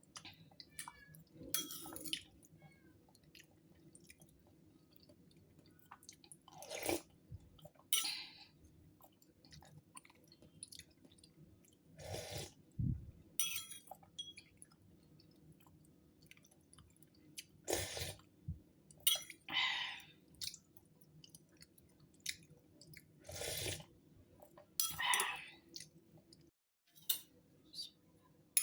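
A person eating soup: short, irregular chewing and sipping mouth noises, about ten of them, over a faint steady room hum.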